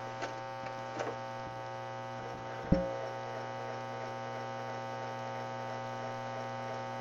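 Magnavox VHS deck's tape mechanism running with a steady hum as its motor turns, with a few light clicks and one sharp mechanical click near the middle, after which the hum takes on an added tone.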